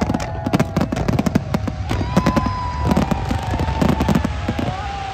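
Aerial fireworks bursting in rapid succession: a dense run of sharp bangs and crackles that thins out near the end.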